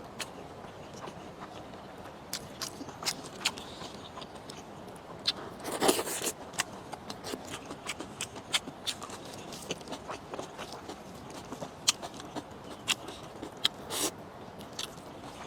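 Close-up eating sounds: irregular crisp bite and chewing clicks, with a louder, fuller bite about six seconds in and another near the end.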